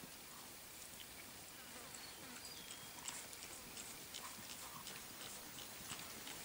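Sorrel tobiano filly walking under saddle on dry pasture grass: faint, irregular footfalls, becoming more distinct about three seconds in.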